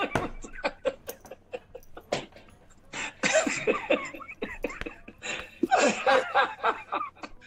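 Men laughing hard in repeated, breathless bursts, with clusters of loud laughter a few seconds in and again near the end.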